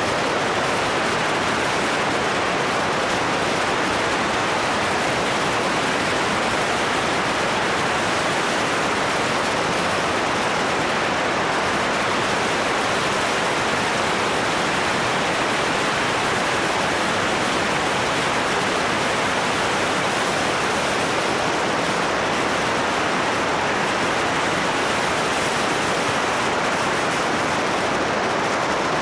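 Steady rushing wind noise on the microphone of a camera mounted on a moving motorcycle, with no clear engine note.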